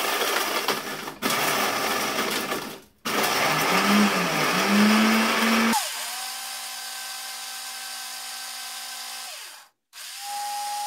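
Countertop blender grinding dried eggshells into powder, run in short bursts. First comes loud, gritty crunching, broken by two brief stops. About six seconds in it changes to a smoother, steadier motor hum as the shells break down. It stops near the end, runs once more briefly and spins down.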